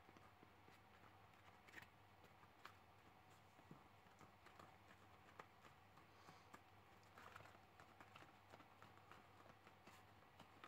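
Near silence: faint, scattered ticks and rubbing from hands bending and squeezing an EVA foam horn, over a low steady hum.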